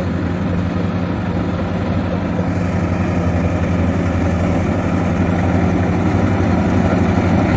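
Rice combine harvesters' engines running steadily while cutting, a low even drone that grows slightly louder near the end.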